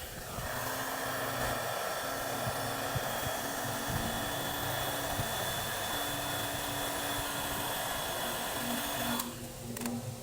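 A handheld bodywork power tool runs steadily, starting right at the beginning and cutting off abruptly about nine seconds in.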